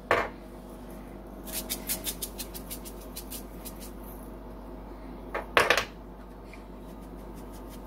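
Salt shaken from a shaker over a bowl of dry rotini: a run of light, quick ticking taps, about four or five a second, followed by two louder knocks about five and a half seconds in as the shaker is handled and set down.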